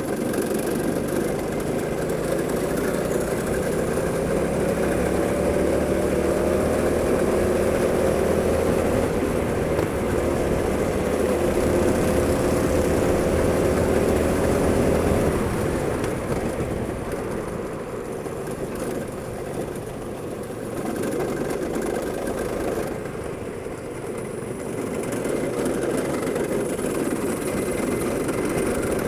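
Go-kart engine running under throttle, its pitch climbing slowly for about fifteen seconds. It then drops back suddenly and quieter, and builds up again near the end.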